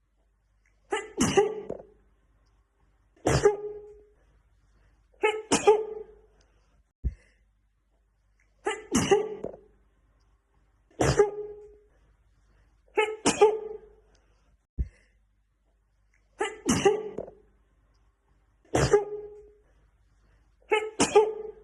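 A woman sneezing over and over: nine sharp sneezes about two seconds apart, falling in three groups of three, with a brief click between the groups where the short clip repeats.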